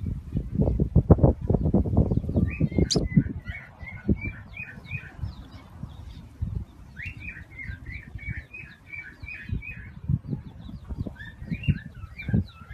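A bird chirping in three quick runs of short repeated notes. A rapid series of low thumps, the loudest sound, fills the first three seconds or so.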